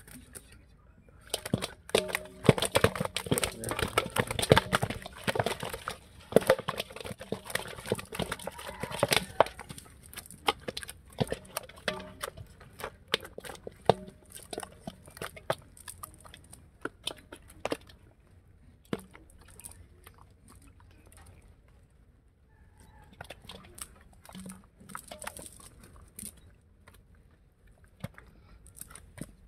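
Live freshly caught fish flapping in a metal bowl: a rapid clatter of wet slaps and knocks against the metal, busiest in the first half and thinning to scattered taps after about eighteen seconds.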